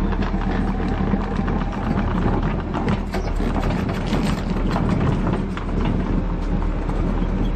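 Case compact track loader's diesel engine running steadily while the machine moves over gravel carrying a stone slab on its forks, with irregular clatter and clicks from the tracks and stones.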